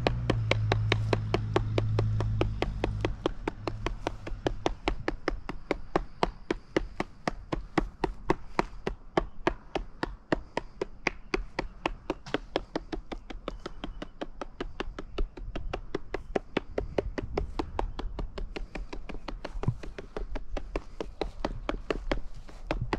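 Hand-held sifter tapped over and over, about four or five light taps a second, to shake green scenery turf onto a layout board. A low hum sounds under the taps and stops about three seconds in.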